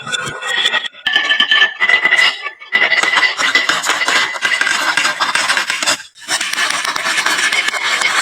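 Marbles rolling and clattering down a wooden marble-run slope: a dense, continuous rattle in several long runs with short breaks between them.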